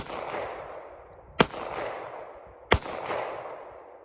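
Firearm shots fired singly at an even pace, three shots about a second and a half apart, each followed by a long echoing tail.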